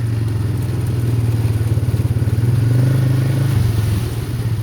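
Vehicle engine running at a steady pitch, easing off about three and a half seconds in into a slower, pulsing throb.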